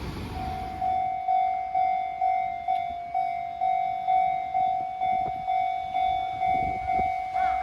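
Japanese railway level-crossing warning bell, starting about half a second in and ringing an even, electronic ding-ding about twice a second. It signals an approaching train as the barriers come down.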